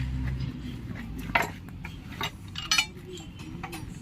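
A few sharp metallic clinks and knocks, one ringing briefly near the end, as metal tools or parts are handled; a low hum fades out about half a second in.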